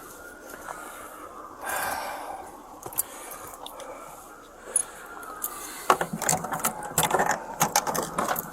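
Jangling and rattling of duty gear and keys, with sharp clicks, as the officer wearing the camera moves, growing busier about six seconds in. Behind it, a faint siren wails slowly up and down.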